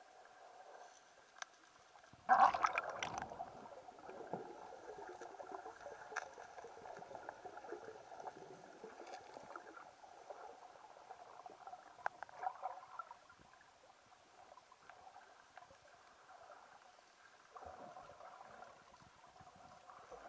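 Muffled underwater water sound picked up by a submerged camera, faint and steady, with a louder gurgling surge about two seconds in.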